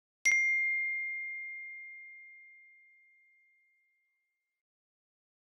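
A smartphone's text-message notification ding: a single clear, high bell-like tone struck once, ringing out and fading away over about three seconds.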